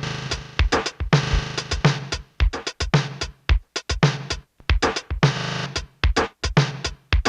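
Akai S612 sampler playing back a sampled drum loop over a low sustained tone. The loop stutters and chops unevenly as its start and end splice points are moved in real time.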